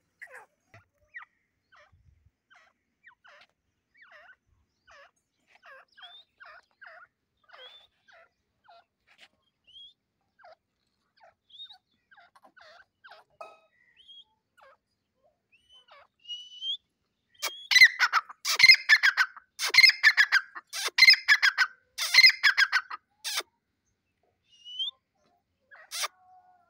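Grey francolins calling: for about sixteen seconds, soft short clucking notes, then a loud, fast series of repeated calls lasting about six seconds, and one more short call near the end.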